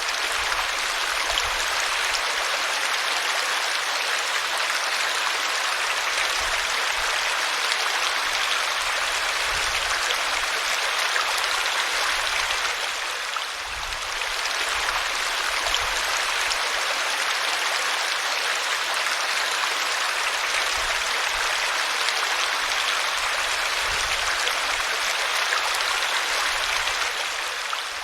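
Small waterfall: water spilling over tree roots in a steady rushing splash.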